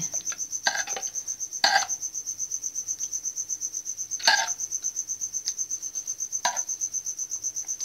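A steel spoon knocks and scrapes against a steel pot four times as thick apricot chutney is ladled into a glass bowl. Underneath, a cricket chirps steadily in a rapid, even, high-pitched trill.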